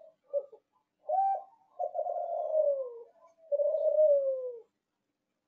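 Kelantan-line spotted dove (derkuku) cooing one phrase: two short notes, then two long, loud notes that each slide down in pitch at the end. The bird still ends its coo forcefully.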